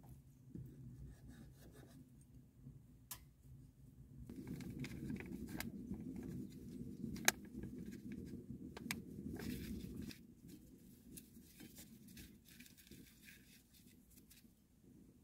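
Faint food-prep handling sounds: a knife slicing a gimbap roll on a wooden cutting board, then, from about four seconds in, a bag of starch powder rustling as it is shaken over the cut pieces in a bowl, with sharp clicks and soft taps as the pieces are turned in the powder.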